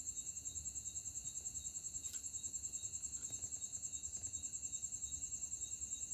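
Crickets chirping in a steady, rapidly pulsing high-pitched trill, with a few faint scratches of a pen writing on paper.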